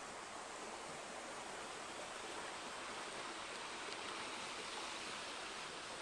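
Steady, even rushing outdoor ambience in a forest, with no distinct events.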